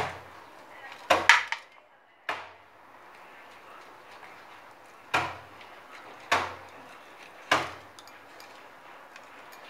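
Boiled egg being grated by hand on a small grater over a steel plate: soft scraping with about six sharp knocks spread through.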